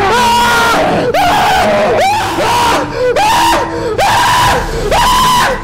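A man yelling over and over, about once a second: each shout swoops up sharply in pitch and is held for most of a second before breaking off.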